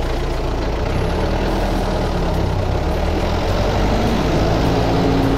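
Engine of a stripped-down Hyundai running steadily, heard from the driver's seat with the dashboard removed, growing a little louder near the end.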